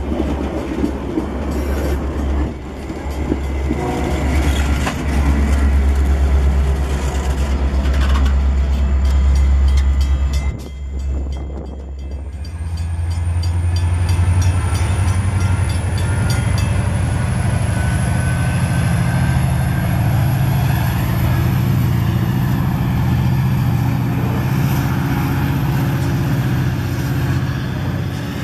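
Stainless bilevel passenger coaches rolling past close by with a steady rumble of wheels on rail. About eleven seconds in, the sound changes to an MPI MP36PH-3S diesel locomotive's turbocharged two-stroke EMD 16-cylinder engine working under load as the train moves off, a deep steady throb with a slowly rising whine over it.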